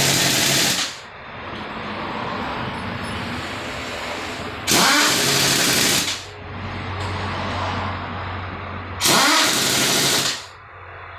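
Impact wrench run in three short bursts about four seconds apart, each spinning up with a quick rising whine into a loud rattling hammer for about a second and a half. A quieter steady machine noise runs between the bursts.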